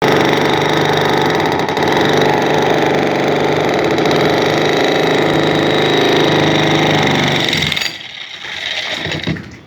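Heavy-duty concrete breaker running, a loud, dense rapid hammering that stops about eight seconds in, followed by a few weaker, uneven noises.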